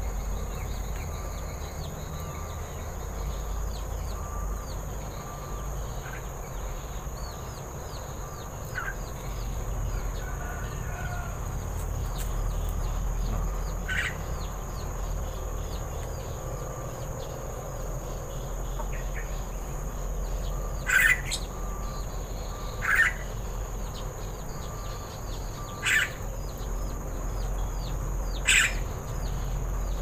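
Steady high-pitched insect trilling with many small bird chirps, and in the second half about five short, sharp calls a couple of seconds apart.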